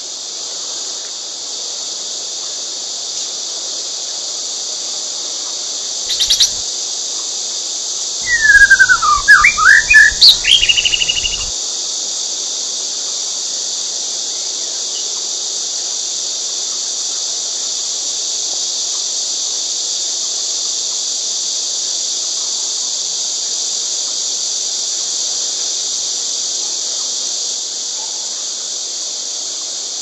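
Steady, shrill drone of insects, with a loud burst of bird calls about eight seconds in: a quick series of sweeping chirps lasting about three seconds.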